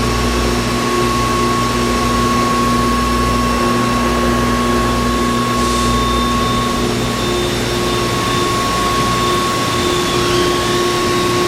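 Haas VF-2 CNC vertical mill spindle running steadily at about 7,500 rpm: a steady mechanical whine made of several pitches. A higher whine joins about halfway through.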